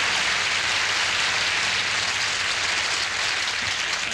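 Studio audience laughing and applauding, with a steady low hum underneath.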